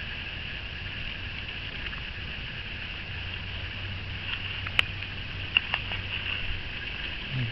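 Steady outdoor background hiss with a few sharp clicks a little past halfway.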